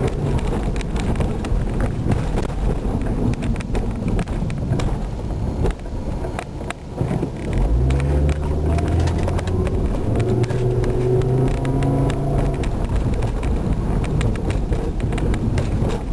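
Volvo car driving, with road noise and frequent knocks for the first several seconds. After a brief lull, the engine note comes in strongly about eight seconds in and climbs a little as the engine speeds up.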